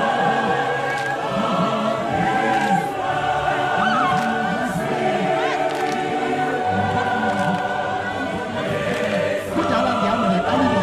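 A group of voices singing together in harmony, with a man's voice leading through a microphone.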